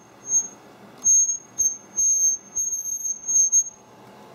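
High-pitched electronic whine from a Lenovo ThinkPad laptop's built-in speakers, cutting in and out in several short bursts, with a few faint clicks. It almost sounds like feedback. The fault was traced to the speaker's yellow and green wire running underneath the CMOS battery.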